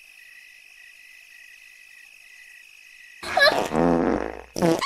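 Steady cricket chirping as a night-time background. About three seconds in, a loud croaky groan lasts about a second, and a short second burst comes near the end.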